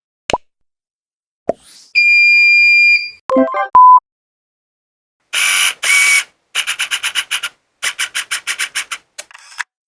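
A run of separate editing sound effects: a quick pop, a rising swish, a steady high beep lasting about a second, a few short electronic blips ending in a tone, then two noisy bursts and two fast runs of clicks at about ten a second.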